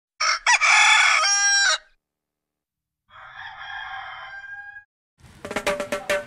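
A rooster crowing loudly, then a second, fainter crow about three seconds in. Music with plucked guitar starts near the end.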